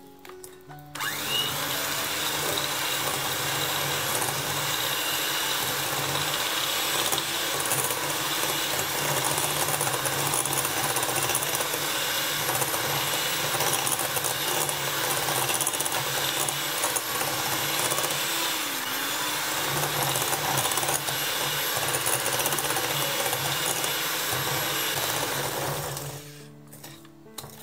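Handheld electric mixer running steadily, its wire beaters creaming butter and erythritol in a glass bowl. It starts about a second in and stops near the end.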